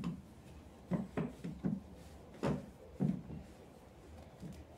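Several brief, soft knocks and rubs as hands tug and smooth a plush fur slipcover over a small stool, spread through the first three seconds or so.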